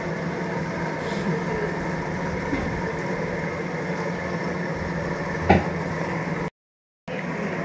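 A steady mechanical hum, with a single sharp knock about five and a half seconds in. The sound cuts out completely for about half a second near the end.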